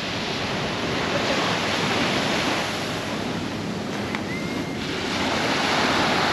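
Sea waves breaking and washing up on a beach, the surf swelling and easing, with some wind on the microphone.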